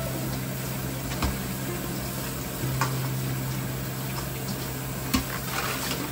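Tap water running into a stainless steel bowl while cabbage leaves are rinsed and rubbed by hand, with a few light knocks of the bowl. A low steady hum runs underneath, dropping out for a moment between about one and three seconds in.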